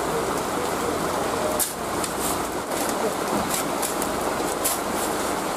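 Heavy rain pouring down, a steady hiss with sharp taps of drops striking close by every so often.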